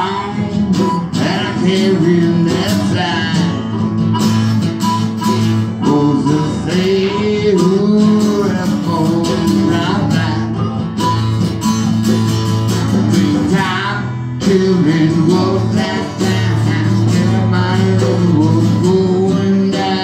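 Live acoustic band music: acoustic guitars strumming under a harmonica played cupped into a vocal microphone, its melody line bending and wavering in pitch.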